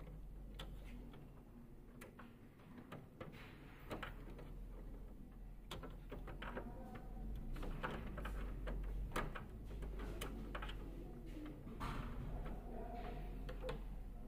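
Irregular plastic clicks and knocks as parts are fitted back by hand into the paper pickup area of a Canon iR 2202 copier, over a low steady hum.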